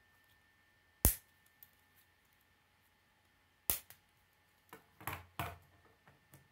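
K'nex plastic rods and connectors snapping together and clicking as they are handled. A sharp snap comes about a second in and another near the middle, then a quick cluster of clicks and smaller ticks.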